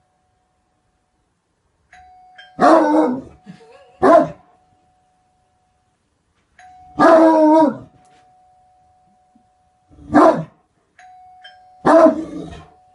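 Great Dane barking: five deep barks a few seconds apart, the first and third longer than the others. A faint steady tone sounds under several of the barks.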